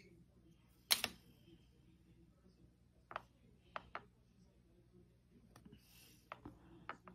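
Faint handling noise of hands working polymer clay on a hard work surface: a sharp click about a second in, then a few lighter ticks as thin cane slices are placed onto a clay sheet.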